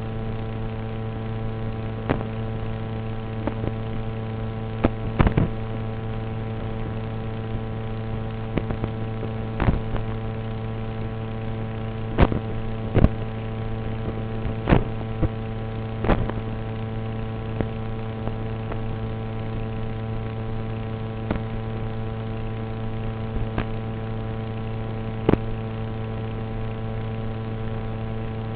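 Steady buzzing hum at one unchanging pitch, broken by scattered sharp clicks and crackles, the loudest about twelve and thirteen seconds in.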